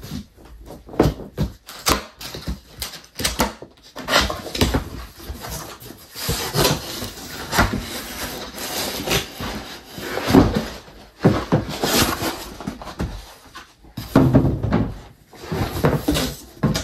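A large cardboard box being handled and opened: irregular scrapes, rustles and knocks of cardboard flaps and sides being moved.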